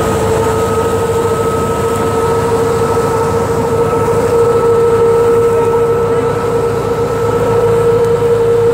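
Tractor-driven wheat thresher running steadily: a loud mechanical drone with a steady whine over it.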